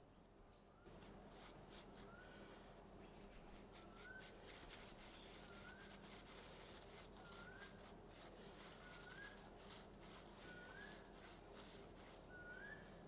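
Eastern koel (storm bird) calling faintly, a short rising call repeated about every one and a half to two seconds. Under it, soft scratching of fingers rubbing ground pumice powder through a plastic sieve.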